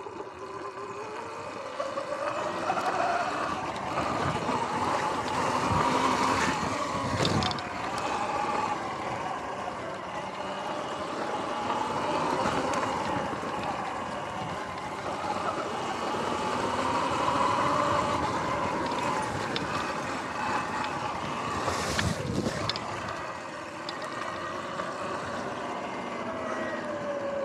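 Electric dirt bike's motor whining, its pitch rising and falling as the speed changes, over wind and tyre noise. There are two sharp knocks, one about a quarter of the way in and one about three-quarters through, and the whine falls in pitch near the end as the bike slows.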